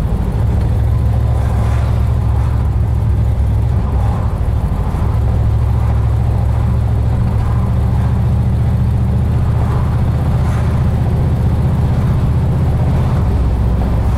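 1955 Ford station wagon under way, heard from inside the cabin: its 272 Y-block V8 running smoothly with road noise, a steady low drone that grows slightly louder about five seconds in.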